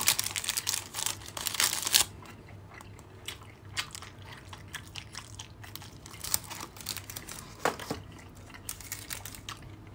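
Wrapper or packaging crinkling loudly for about the first two seconds as a thin dark chocolate piece is taken out. Then comes the quieter biting and chewing of the chocolate, with scattered small snaps and clicks.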